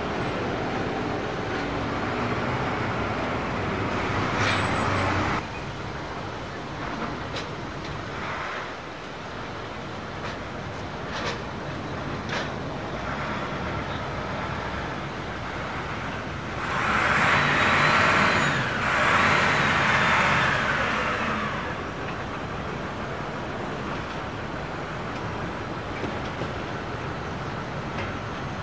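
Airport ramp noise: a steady rumble of ground vehicles and equipment. A louder swell, as of a vehicle passing, comes about 17 to 21 seconds in, and a shorter one cuts off sharply about 5 seconds in.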